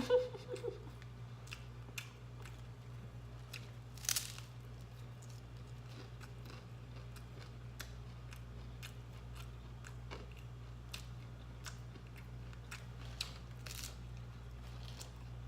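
A person chewing a taco close to the microphone, with scattered crisp crunches and mouth clicks. A louder crunch comes about four seconds in and another near the end, over a steady low hum.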